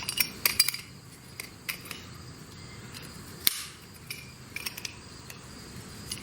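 Loose metal piece rattling and clinking as it is shaken by hand, with a sharp click about three and a half seconds in: the rattle that the broken part made on the car.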